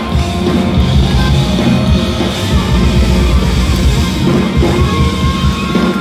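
Live band playing loud, amplified rock music on drum kit, electric bass and guitars.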